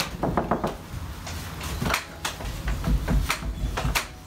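Wooden table leaf and breadboard end being handled and knocked together on the domino joints: a brief creak near the start, then several sharp wooden knocks and dull thuds.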